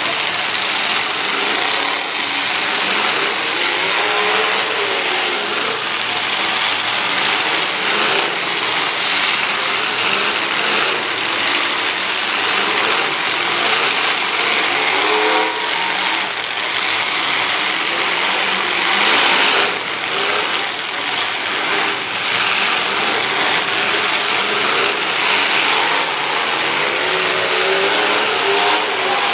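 Many demolition derby cars' engines running and revving together, their pitch rising and falling as the cars accelerate and ram each other. Several short knocks around two-thirds of the way through are cars colliding.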